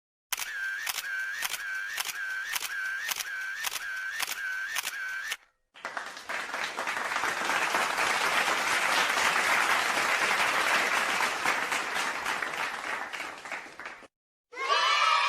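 A run of about ten evenly spaced clicks, about two a second, each with a short dipping tone. Then applause that swells and fades away, and near the end a crowd starts cheering.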